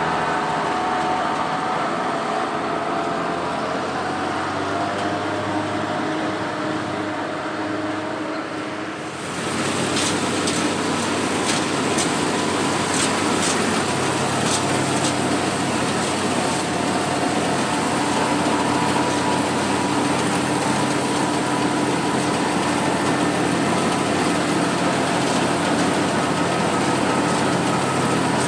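Oliver 430 combine running steadily under load while harvesting wheat: a 93 hp engine together with the clatter of its threshing machinery. About nine seconds in the sound shifts abruptly, and a few sharp ticks follow soon after.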